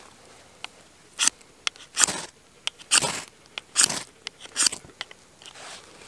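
Spine of a Terävä Skrama machete scraped hard down a ferrocerium rod, throwing sparks onto a fire starter: five sharp metal rasps about a second apart, with lighter scrapes between.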